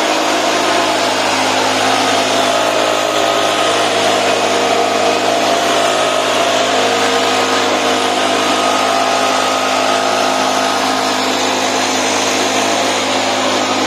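Makita backpack engine mist blower running steadily: its small petrol engine runs with an even tone under a loud, constant rush of air from the blower tube.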